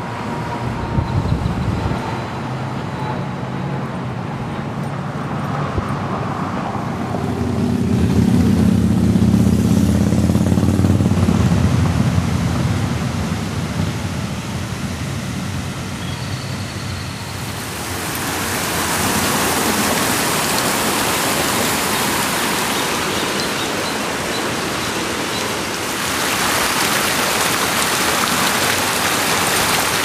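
City street traffic, with a heavy vehicle's engine rumbling past loudest about eight to eleven seconds in; later a steady rushing noise takes over.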